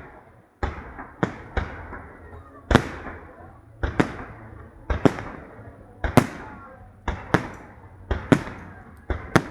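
Fireworks display: shells bursting one after another, one or two loud bangs a second, each trailing off in a rumble.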